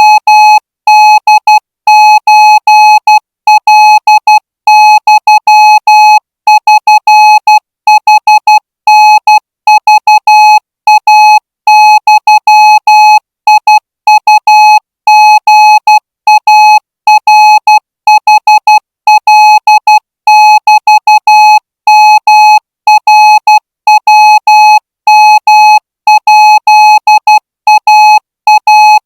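Morse code sent as a single buzzy beeping tone, switched on and off into short dots and longer dashes in quick groups with brief gaps between characters, running without a break. It is a Morse receiving-practice signal of the kind played in a signal corps promotion exam.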